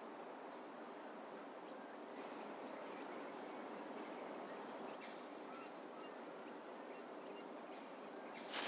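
Faint, steady woodland ambience: an even outdoor hiss with a few faint, brief sounds scattered through it. A sudden louder rustling noise begins right at the end.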